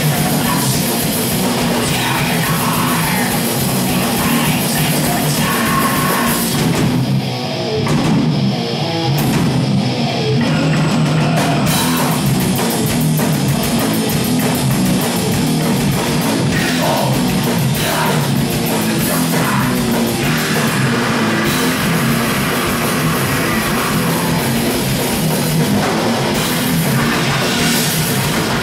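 Live death-thrash metal band playing loud, with distorted electric guitars and a drum kit. The music thins briefly about seven seconds in.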